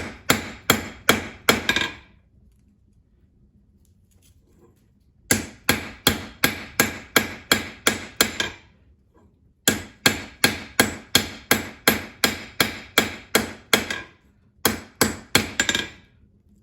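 Hand hammer striking hot 5160 coil-spring steel on an anvil in runs of quick, ringing blows, about three a second, with short pauses between runs: the octagonal handle of a slot punch being forged down and back along its length.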